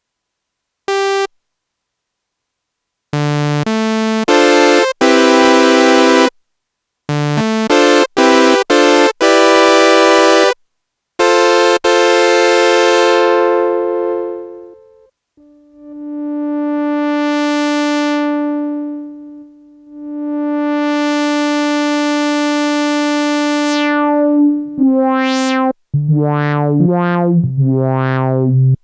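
Korg Minilogue XD polyphonic synthesizer playing a series of short patch demos, separated by silences: held chords, then a few quick staccato chord stabs, then two slow-swelling pad chords whose tone brightens and darkens as the filter opens and closes, and near the end a quick run of notes with filter sweeps.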